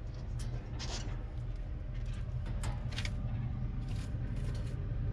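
A few light, sharp clicks of small stainless steel standoffs and a screwdriver being handled, over a steady low rumble.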